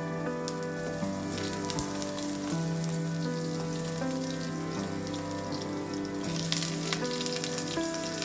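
Food frying in hot oil in a pan, a steady crackling sizzle, under background music with sustained notes.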